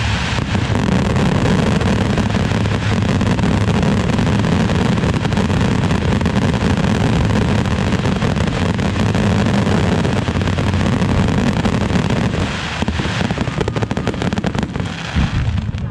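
Fireworks display: a dense barrage of firework bursts overlapping into one continuous din, with a spell of rapid crackling a few seconds before the end.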